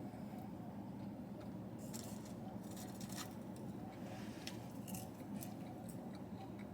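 Quiet eating sounds: a scattering of small sharp clicks and crunches from chewing and handling fast food, over a steady low room hum.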